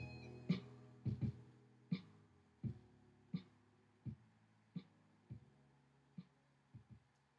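Hip-hop instrumental beat fading out: a held chord rings under a drum hit that lands about every 0.7 seconds, the whole thing growing steadily quieter until it is faint at the end.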